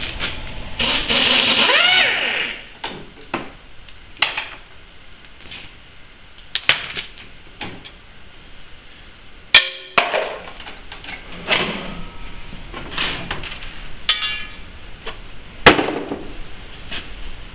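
Irregular clanks, knocks and scrapes of metal and plastic parts as a zero-turn riding mower is pulled apart by hand. There is a louder scrape with a shifting squeal about a second in, and sharp metallic strikes near the middle and near the end.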